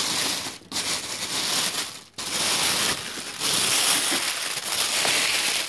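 Crumpled silver foil packing being handled and pulled apart by hand, crinkling in long stretches with two brief pauses early on.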